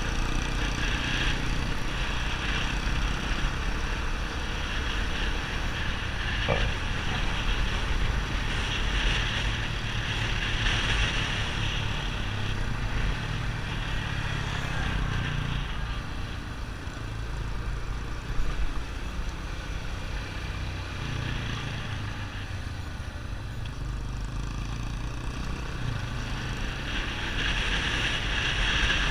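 Yamaha XTZ 250 Ténéré's single-cylinder engine running through a Roncar 2WAY SC401 aftermarket exhaust. It sounds steady, eases off a little past the middle and picks up again near the end.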